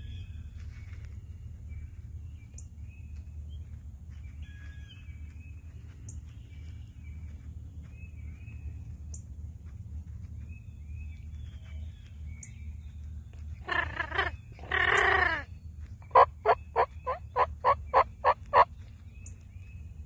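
Eastern wild turkey gobbler gobbling twice in quick succession, each gobble a loud rattling burst, followed by a run of about nine quick, loud yelps. Faint songbirds chirp before it.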